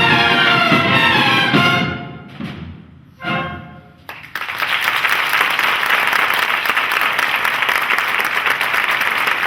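Cornet and drum band ending a piece on a loud brass chord that dies away, with a short final note, then an audience applauding from about four seconds in.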